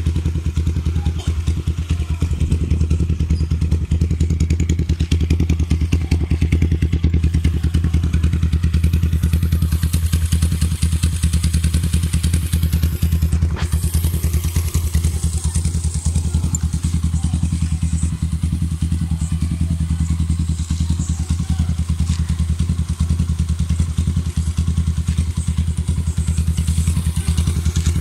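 Suzuki Raider 150 single-cylinder four-stroke engine, bored out to 235cc and fitted with an MRBA racing exhaust pipe, idling steadily, warming up just after a morning cold start.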